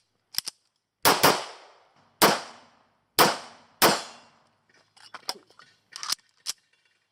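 Pistol shots in practical shooting: four sharp reports about a second apart, each with a short echo tail. Fainter clicks and knocks come between them, near the start and again later on.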